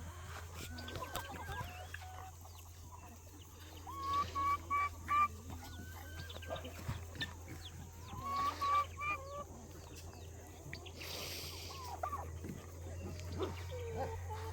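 Chickens clucking, in quick runs of four or five short calls about four seconds in and again about eight seconds in, with a brief hiss near the end.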